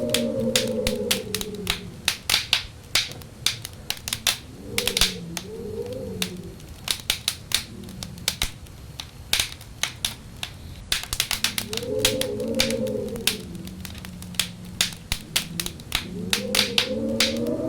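Wood fire crackling and popping with quick, irregular snaps, while wind howls in rising and falling moans. The howl fades away in the first two seconds, returns briefly around five seconds in and again around twelve seconds in, and swells back near the end.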